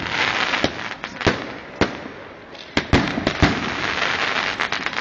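Fireworks going off: a dense crackling hiss with many sharp bangs and pops, about a dozen standing out, as a volley of aerial fireworks bursts.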